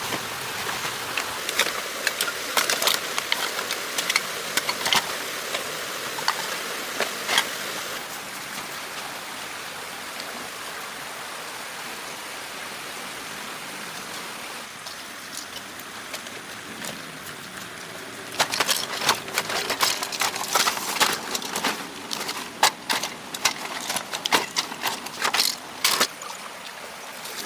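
Rushing floodwater churning steadily, with many sharp splashes and knocks in bursts at the start and again in the last third, and a calmer, steadier flow between.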